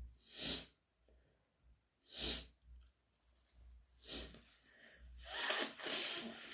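A person's wet, half-stifled sneezes brought on by a cat allergy: three short sneezes about two seconds apart, then a longer, louder one near the end.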